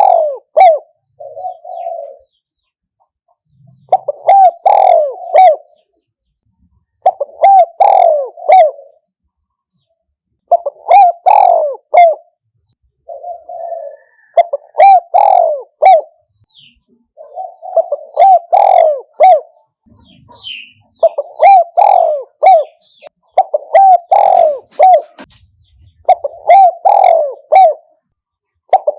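Spotted dove cooing loudly: a phrase of several short, throaty coos, repeated about every three seconds, with a few shorter, softer notes slipped in between some phrases.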